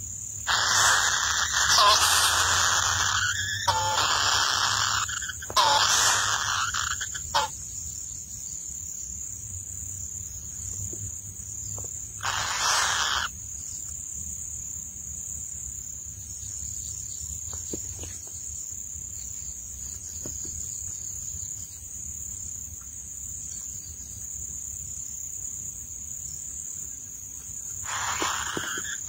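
Kingfisher nestlings giving rasping begging calls at feeding: several bursts over the first seven seconds, another about twelve seconds in and one near the end, over a steady thin high tone.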